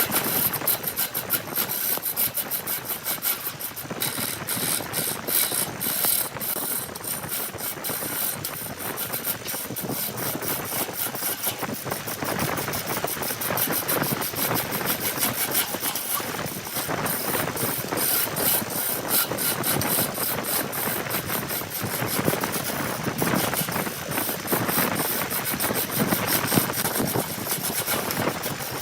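Homemade power cutting machine working through wood, a steady mechanical rattle of rapid clicks.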